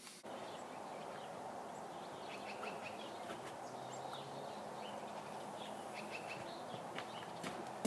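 Quiet outdoor ambience: a steady faint hiss with scattered short, faint bird chirps.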